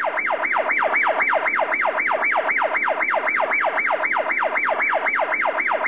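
Emergency-vehicle siren on a fast yelp, repeating a falling pitch sweep about four times a second.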